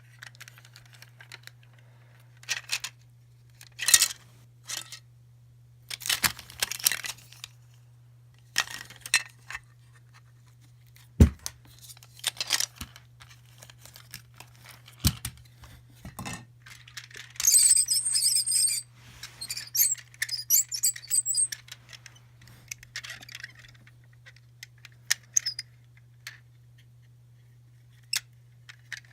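Small plastic toys and surprise-egg capsules being handled: scattered clicks, taps and knocks, with a busier run of rattling and clinking about two-thirds of the way through. A faint steady hum sits underneath.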